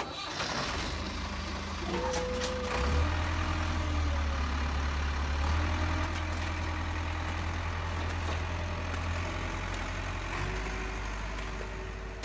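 Heavy construction-machine engine running steadily, a deep rumble that gets louder from about three seconds in and eases off again around nine seconds, with faint higher whining tones over it.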